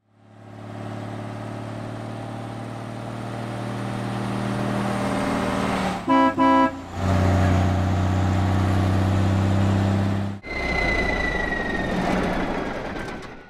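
Truck engine sound effect running steadily as it fades in, with two short horn toots about six seconds in. About two-thirds through, the engine note changes and a high whine glides slowly downward until the sound cuts off.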